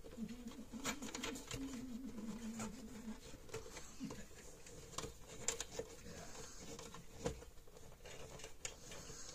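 Faint scattered clicks and rustles of hands working small plastic parts, a washer and a power cord while fitting a fuse holder into an electric fence charger's plastic case, two sharper clicks standing out in the second half. A low wavering hum runs through the first three seconds.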